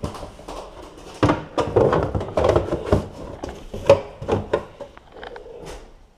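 Boxes and household belongings being handled and packed: an irregular run of knocks, thuds and rustles, busiest in the middle.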